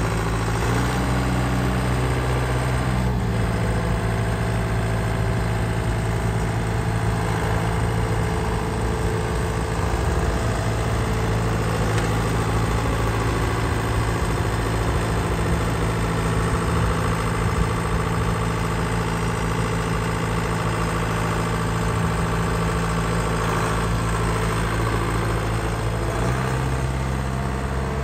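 John Deere 6420 tractor's four-cylinder diesel engine idling steadily. The engine note changes about three seconds in. Near the end the low note grows heavier as the tractor starts to drive off.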